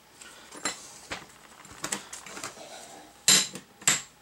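Loose steel suspension parts (fulcrum pins, nuts and control-arm pieces) knocking and clinking against each other and the metal workbench as they are handled: a few light knocks, then two loud ringing metallic clanks near the end.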